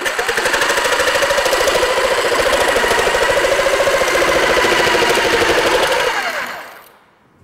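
Jigsaw running and cutting a curve through a wooden board, the blade stroking with a fast steady buzz. About six seconds in the motor winds down and fades out.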